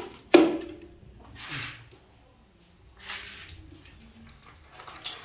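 Snakehead fish being pulled out of a grass-stuffed bag onto a tiled floor. There is one sharp knock, then two short bursts of rustling and scraping, with smaller ones near the end.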